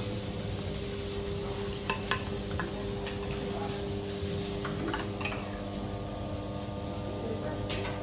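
A few scattered light clinks of metal cooking utensils at a teppanyaki grill, over a steady hum and hiss.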